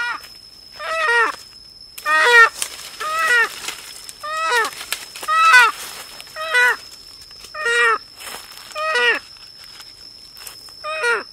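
An animal calling over and over, about ten short calls roughly a second apart, each one falling in pitch. A steady high tone runs underneath.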